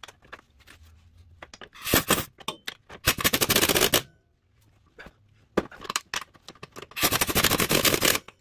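Cordless impact wrench hammering bolts home in three bursts: a brief one about two seconds in, a longer one about a second later, and another of about a second near the end. Between the bursts there are small clicks of handling. The bolts are mounting bolts going back in during a steering rack installation.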